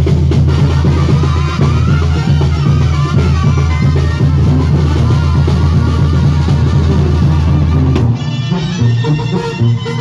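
A live band with a horn section and a drum kit playing loud amplified music. About eight seconds in, the full band drops out and the music thins.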